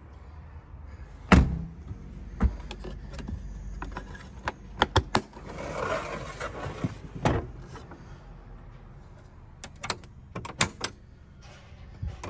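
Scattered clicks and knocks of camping gear, bins and a portable fridge being handled in a Jeep's rear cargo area, with a brief rustle in the middle. Underneath is a steady low rumble of wind on the microphone.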